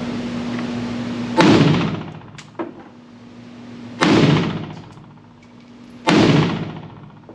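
Three single shots from a Pioneer Arms Hellpup 7.62x39 AK-pattern pistol, about a second and a half in, at four seconds and at six seconds, each echoing with a long tail.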